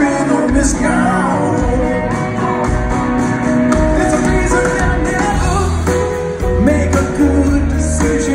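A rock band playing a song live: drums, bass, electric and acoustic guitars and keyboard, heard from the audience in a concert hall.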